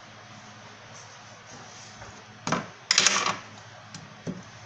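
Kitchen handling noise: a brief clatter and rustle about three seconds in, with a smaller knock just after, over a faint steady hum.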